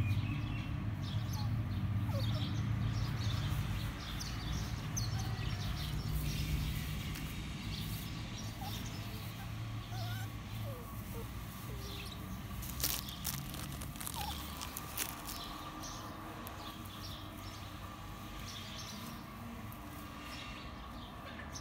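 Outdoor ambience: scattered small bird chirps over a low rumble that fades out about halfway through, with a couple of sharp clicks past the middle.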